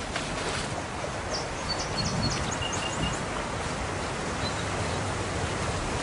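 Steady outdoor hiss of open natural ambience, with a quick run of short, high bird chirps between about one and three seconds in.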